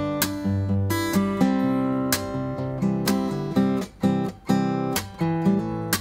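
Fingerstyle acoustic guitar playing an instrumental arrangement of a Thai pop song: a plucked melody over bass notes, broken by sharp strummed chords.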